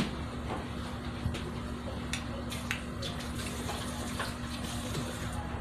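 Water running from a kitchen tap into the sink, steady, with a few small clicks and clinks now and then and a faint steady low hum underneath.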